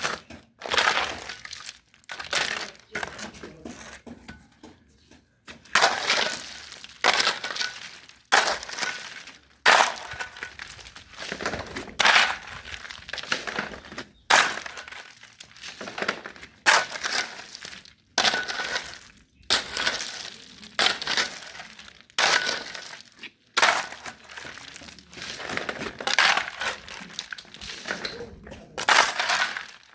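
Rough, gritty scraping and crunching strokes, each about half a second long, coming irregularly about once a second.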